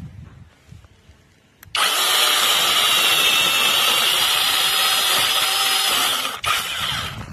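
Supstable cordless mini chainsaw's brushless electric motor switching on abruptly and running with a steady high whine for about four seconds, then stopping.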